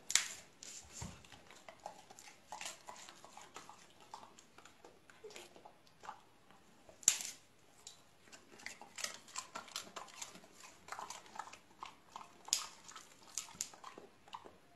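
Golden retrievers' mouths working on treats and a toy: irregular clicks, smacks and chewing sounds, with three sharper snaps, one right at the start, one about halfway and one near the end.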